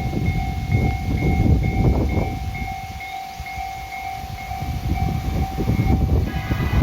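A two-tone electronic train-approach warning pulsing about twice a second over the low rumble of an oncoming H100 DECMO diesel railcar train. Near the end the warning stops and the train's horn starts to sound.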